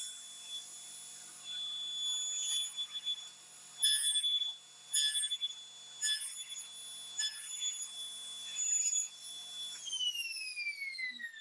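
Table saw running with a steady high whine, with about six short louder bursts as the stock is pushed through the blade to cut the tenon. About ten seconds in the saw is switched off and the whine falls steadily in pitch as the blade coasts down.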